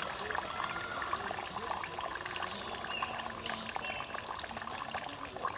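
Water dripping and trickling off a wet cast net into a pond as the net is gathered, many small drips in a steady stream.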